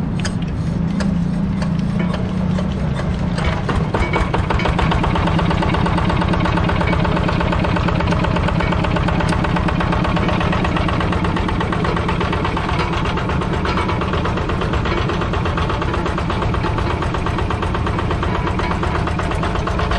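Yanmar TF85 single-cylinder diesel engine of a hand tractor idling steadily right after being started, a little louder from about four seconds in.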